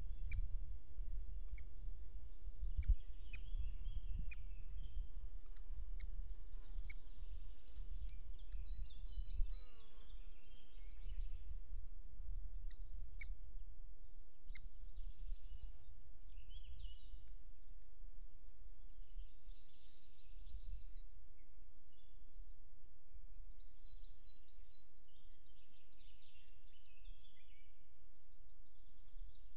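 Wind rumbling on an outdoor microphone, heavier in the first ten seconds. Over it, birds sing short phrases of high, quick notes every few seconds.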